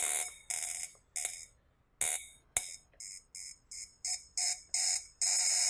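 Electronic sci-fi sound effect for a portal opening: a series of bright, hissing shimmer bursts that each fade away. From about three seconds in, it becomes a rapid pulsing beep of roughly three to four pulses a second and ends in a longer burst of hiss.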